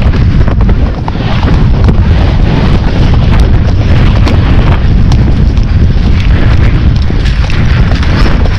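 Heavy wind rumble on the microphone of a rider-worn camera on a galloping horse, loud and continuous, with scattered short knocks from the gallop and tack.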